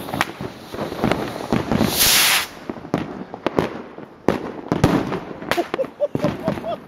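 A rapid, irregular string of sharp cracks and pops, with a brief loud hiss about two seconds in.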